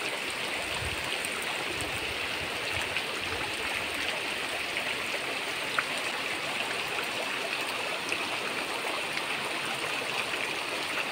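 Floodwater rushing through a submerged village, a steady, even rushing sound.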